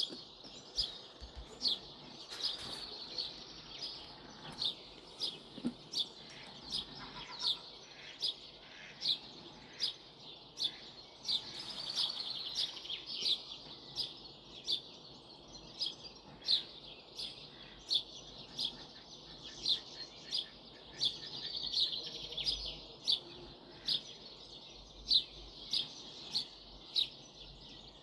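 Birds calling in the bush: one short, high chirp repeated about once a second, with other chirps joining now and then, over the faint steady rush of a creek.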